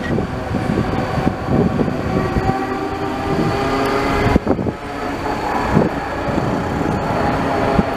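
Low-floor articulated tram passing close by, its wheels rumbling on the rails under a steady whine of several tones, with a couple of sharp knocks about four and a half and six seconds in.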